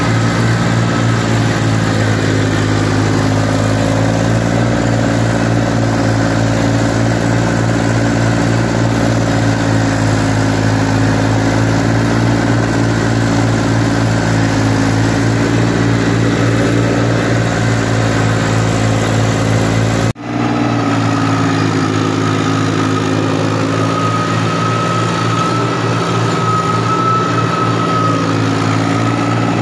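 Massey Ferguson 1035 tractor's three-cylinder diesel engine running steadily at about 2000 rpm while working in second low gear, with a brief cut about twenty seconds in.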